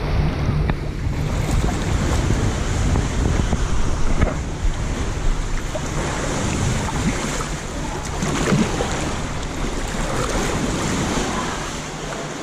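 Lake Superior waves washing around a kayak, with wind buffeting the microphone in a steady, heavy rumble.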